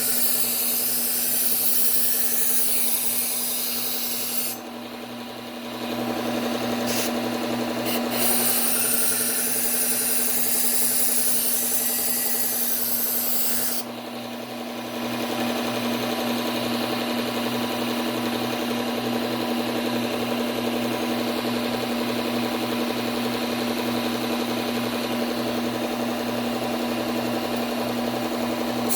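Low-speed belt sander motor humming steadily while a kitchen knife edge is ground on a Cubitron 120-grit belt, a loud continuous hiss of abrasion, apexing the edge to raise a burr. The grinding stops twice for a second or so, about five and fourteen seconds in, with a couple of brief touches between, while the motor runs on.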